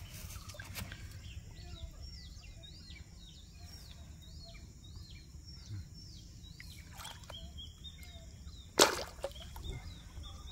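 A bird calling repeatedly in a fast series of short, high, falling chirps, then one sudden loud splash about nine seconds in as the released snakehead kicks away into the water.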